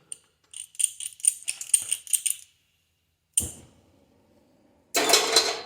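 A run of quick, light metallic clicks for about two seconds, then one sharp click. Near the end comes a short, loud rush of gas as a torch is lit.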